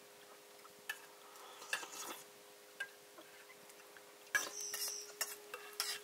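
Metal dishes and utensils clinking and scraping in scattered light knocks, with the loudest run of clatter about four and a half seconds in.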